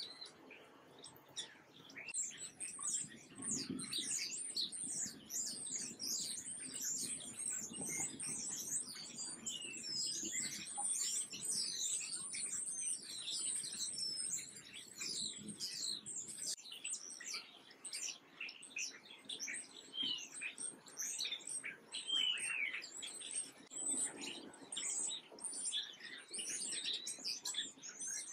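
Many small songbirds chirping at once: a dense, unbroken chorus of quick, high, down-sliding chirps that swells in about two seconds in.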